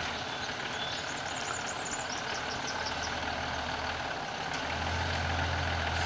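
Four-wheel drive's engine running at a low idle while the vehicle stands in a river crossing, with a low hum that fades and returns, over a steady hiss of background noise.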